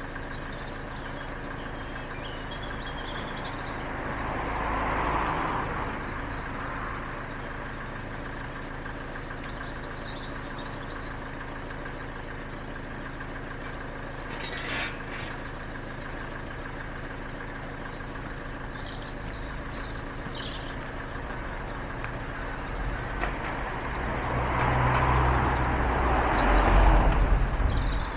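Road traffic passing twice, swelling up and fading away about five seconds in and again near the end, over a steady low hum, with birds chirping faintly.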